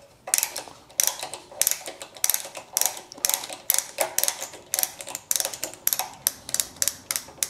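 A hand tap cutting a new thread in an aluminium cylinder head. It is worked back and forth in a ratcheting tap holder, which gives a run of sharp clicks at about four a second.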